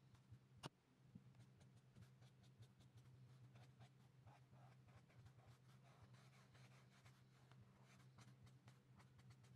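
Faint scratching of an alcohol marker's tip stroking across sketchbook paper in short, irregular strokes over a steady low hum. A single sharp click comes about half a second in.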